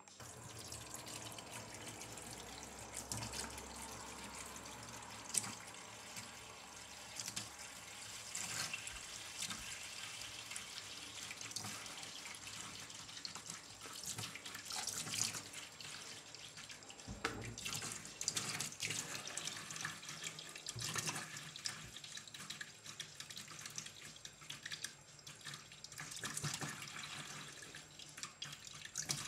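Thin stream of tap water running into a stainless steel kitchen sink, with irregular splashes as a cat paws at the stream.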